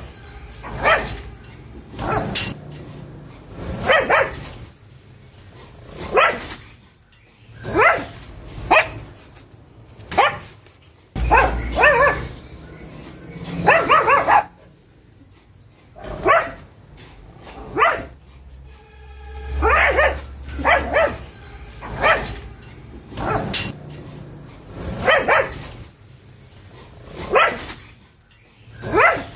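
Pug barking over and over, short barks about every second or two, some in quick pairs, with a brief lull about halfway through.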